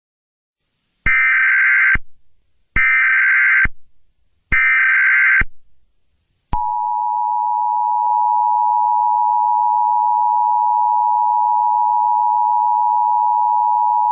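Emergency Alert System (EAS) SAME header: three bursts of digital data tones about a second each, followed about six and a half seconds in by the steady two-tone EAS attention signal, which holds on. This is the tone sequence that opens an emergency alert broadcast.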